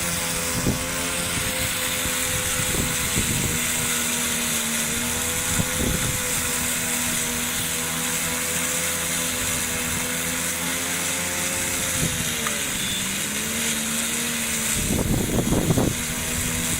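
Battery-powered robotic grass mower running, its electric motors giving a steady whine. The pitch dips and recovers about twelve seconds in, and a rough crackling noise comes in near the end.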